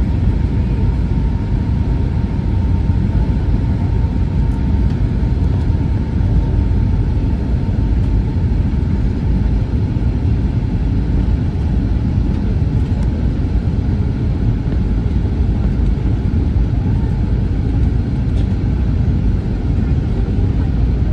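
Steady low rumble of an airliner cabin in flight: engine and airflow noise heard from inside the cabin, with a faint steady whine that fades out about halfway.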